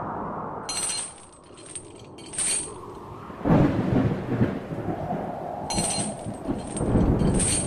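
Thunderstorm sound effect: a sudden thunder crash about three and a half seconds in that goes on rumbling, with rain, and a second swell of thunder near the end. Twice, about a second in and again near the end, a quick run of three high, ringing clinks sounds over it.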